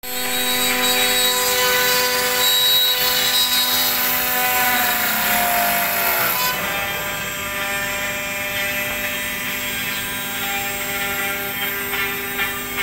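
CNC router spindle running with a steady, high whine of several held tones over a hissing cutting noise as the bit routes through an MDF sheet. About six and a half seconds in the sound changes abruptly, the hiss dropping and the tones shifting slightly.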